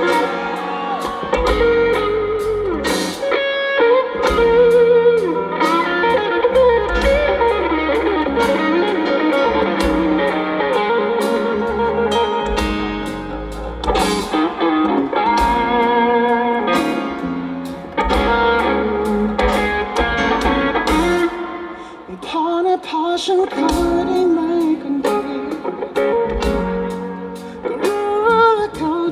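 Live band playing a song, with guitar leading over drums.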